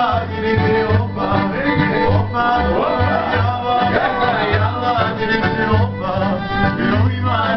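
Live accordion, acoustic guitar and plucked upright double bass playing a lively tune together, the bass sounding a steady run of low notes under the accordion's melody.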